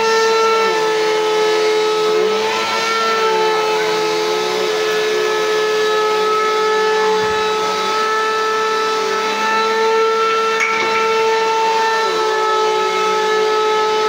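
Bissell PowerForce Compact bagless upright vacuum running steadily while it is pushed across a rug. Its motor gives a constant whine, and a lower note sags and recovers several times.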